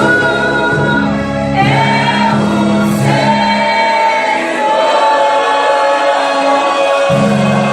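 Choir singing a gospel hymn with instrumental accompaniment; the bass drops out for a few seconds in the middle and comes back near the end.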